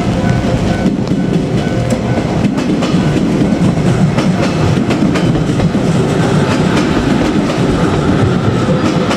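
JR Kyushu 817 series electric train passing close by, its wheels clicking over the rail joints in a steady run of clatter.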